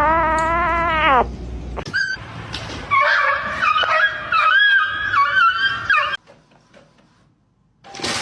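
Domestic cat's long meow that dips and then rises in pitch, ending about a second in. A few seconds later comes a wavering, warbling animal call lasting about three seconds, and a burst of noise starts near the end.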